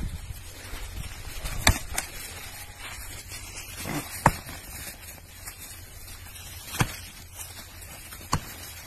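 Rams head-butting: sharp cracks of horns and skulls clashing, about six in all, some in quick pairs, the loudest about four seconds in, over a steady background hiss.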